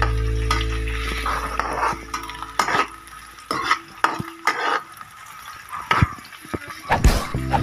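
Julienned ginger frying in oil in a wok, with a spatula stirring and scraping against the pan in repeated clicks over a light sizzle. A low steady hum fades out over the first few seconds.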